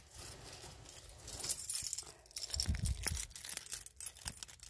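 A bunch of keys jangling and clinking in the hand, with a few low handling bumps near the middle.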